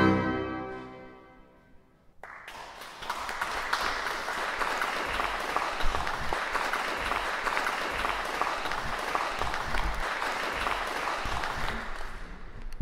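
Final chord of the Bätz pipe organ dying away in the church's reverberation over about two seconds, then audience applause that starts suddenly and runs steadily until it cuts off abruptly.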